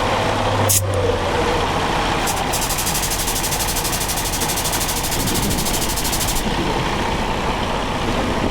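Semi truck's diesel engine idling amid steady highway traffic noise. For about four seconds in the middle, a rapid, even, high-pitched ticking sounds as the jack raises the truck.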